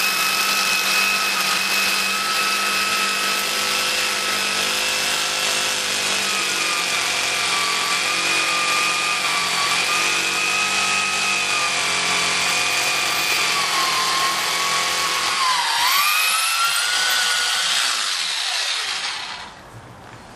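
Budget mains-powered SDS hammer drill boring into a concrete floor: a steady, loud whine, running for about nineteen seconds. Near the end the pitch dips and rises, then the drill winds down and stops.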